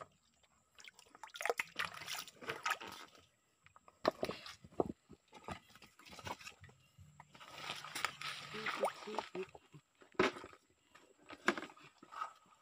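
Hands splashing and sloshing in a shallow, rocky stream while picking snails from among the stones. Irregular small splashes, with a few sharp knocks scattered through.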